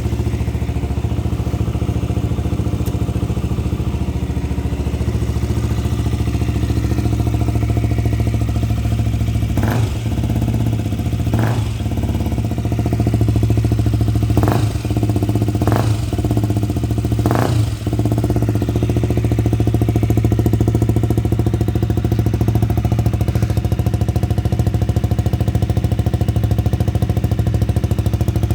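KTM Duke 125's single-cylinder four-stroke engine idling steadily through an aftermarket exhaust while still cold from its start. Between about ten and eighteen seconds in, five short sharp snaps cut in over the idle.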